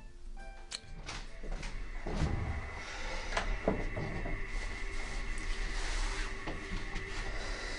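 A few notes of music end just after the start, then a run of clicks and knocks from a cupboard door being opened and handled, over a steady faint whine.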